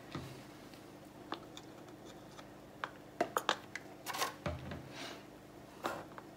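Faint clicks, taps and rubbing from hands handling a plastic funnel and a plastic paint bottle. There is a quick cluster of sharp clicks about three seconds in and a soft low thump about four and a half seconds in.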